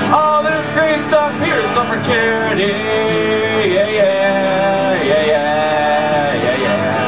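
Country music: strummed acoustic guitar with a melody line gliding over it.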